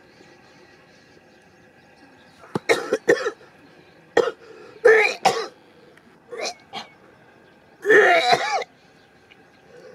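A person coughing and clearing their throat in a series of short fits, the longest about eight seconds in.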